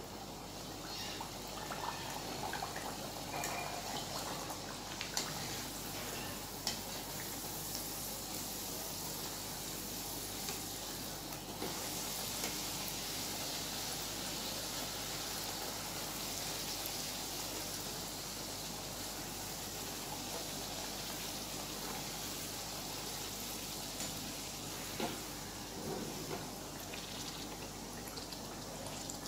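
Puri deep-frying in hot oil in a kadhai: a steady sizzle with scattered small pops, getting somewhat louder about twelve seconds in.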